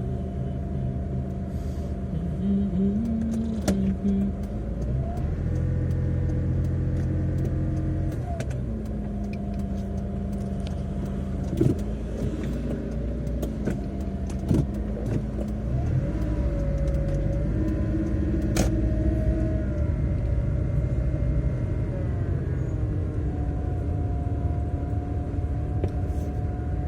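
Car's engine and road noise heard from inside the cabin while driving slowly, the engine note rising and falling gently with speed, with a few sharp clicks.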